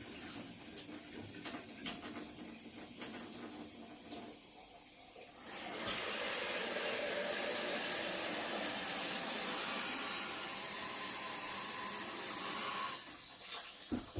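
Kitchen tap running water into a sink, with a few small knocks. The flow turns much stronger about five and a half seconds in and shuts off about a second before the end.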